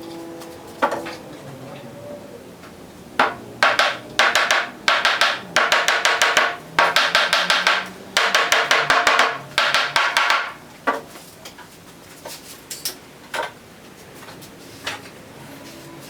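Hammer blows on wood, coming in quick runs of several strikes a second from about three seconds in, then thinning to a few single knocks near the end: mortise-and-tenon joints being driven together during assembly.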